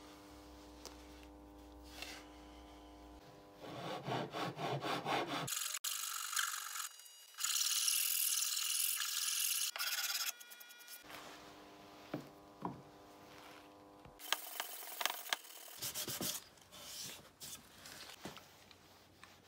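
Hand file rasping along the edge of a wooden cutting board in runs of back-and-forth strokes, broken up by abrupt cuts, with a faint steady hum between the runs.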